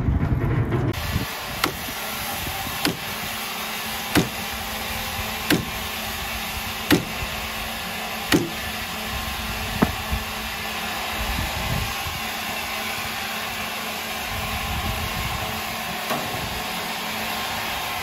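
Steady machine noise, with a sharp knock about every second and a half during the first ten seconds.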